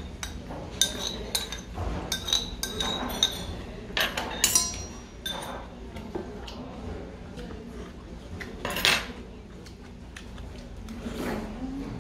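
A metal spoon clinks and scrapes against a ceramic soup bowl while someone eats hot soup. Short ringing clinks come through the first few seconds, with a longer slurp about nine seconds in.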